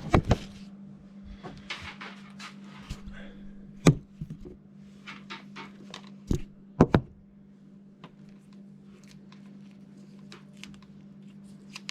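Sharp knocks and thunks of hard parts being handled, two near the start, one about four seconds in and a close pair around six to seven seconds in, over a steady low hum.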